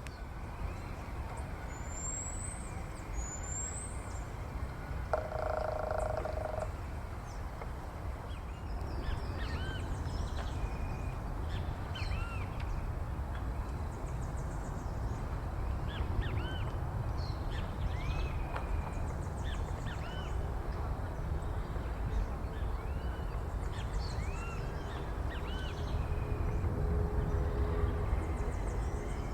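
Outdoor birdsong: many short, arched chirps from several small birds, two high rising whistles a couple of seconds in, and a longer, lower sound about five seconds in, over a steady low rumble.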